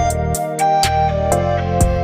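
Background music with a steady beat: sustained keyboard notes over a bass line and drum hits.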